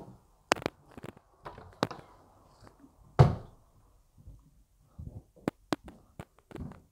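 Footsteps and scattered knocks on a bare floor in an empty room, with one loud, echoing thump about three seconds in.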